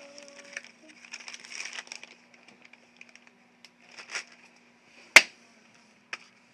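Handling noise: soft rustling and small clicks, then one sharp tap about five seconds in and a lighter one about a second later, over a faint steady hum.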